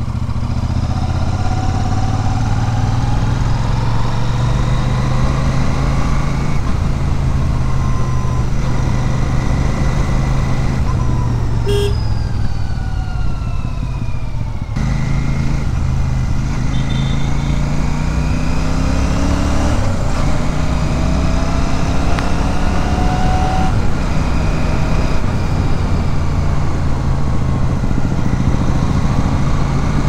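Royal Enfield Super Meteor 650's 648 cc parallel-twin engine and exhaust under way on the road. The engine note sinks as the bike slows, from about ten to fourteen seconds in, then climbs steadily for several seconds as it picks up speed again.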